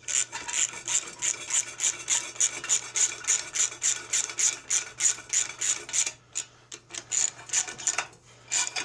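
Socket ratchet wrench tightening bolts, its pawl rasping in quick back-and-forth strokes about three a second, pausing briefly twice near the end.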